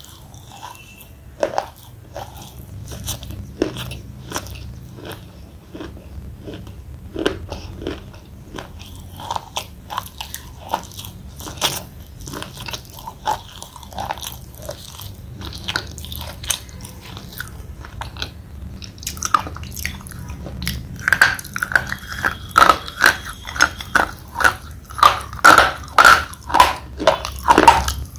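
Thick slate pencil being bitten and chewed: scattered crunches at first, then from about two-thirds of the way through a run of louder, steady crunches about two a second.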